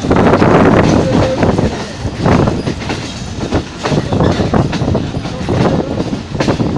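Awam Express passenger coach wheels rolling and clattering over rail joints and switch points as the train pulls out, heard close from the coach doorway: a loud, dense rumble with irregular sharp clacks.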